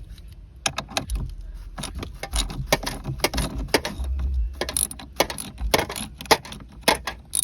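A hand tool clicking and clinking on the car battery's negative terminal clamp as it is disconnected: many irregular sharp metallic clicks.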